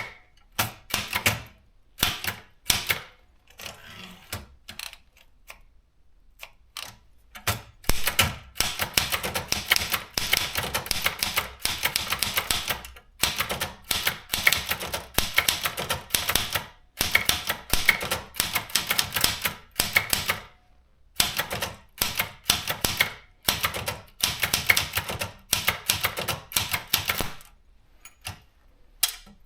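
Privileg JP 1 typewriter being typed on: rapid runs of sharp key strikes in bursts of a few seconds, broken by short pauses, with sparser strikes in the first few seconds.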